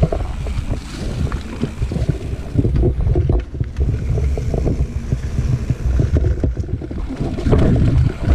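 Mountain bike rolling fast down a dirt trail: wind rushing over the microphone and tyre rumble, with frequent short clicks and knocks from the bike over rough ground.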